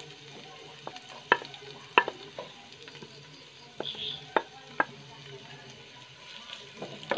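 Sliced shallots frying in a little hot oil in a nonstick pan with a faint sizzle. A wooden spatula knocks sharply about six times as the onions are scraped off a plate and then stirred.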